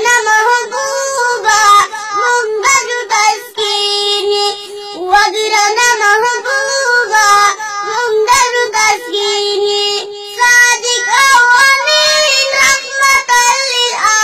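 A small child singing a Pashto chant in a high voice, with long held notes.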